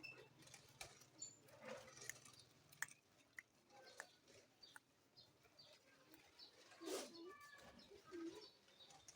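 Indian ringneck parakeet making faint, scattered soft chirps and clicks, with a slightly louder short call about seven seconds in.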